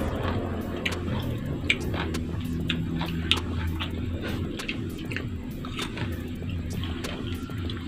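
Close-up crunching and chewing of raw green mango pieces dipped in sambal, with many short, sharp mouth clicks, over a low steady hum.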